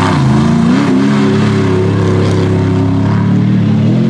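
Mega truck's engine running hard under throttle. Its pitch drops at the start, climbs back within the first second, then holds high before easing off slightly near the end.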